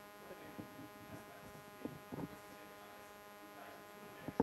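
Quiet room tone carrying a steady electrical mains hum and buzz. A few faint rustles or knocks come about two seconds in, and a sharper knock comes just before the end.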